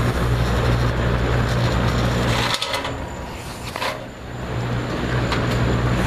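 Vintage Toastmaster 4425 box fan running, its electric motor giving a steady mains hum over the rush of air from the blades. About two and a half seconds in, the hum and air noise fall away for a second or two with a couple of light clicks, then come back.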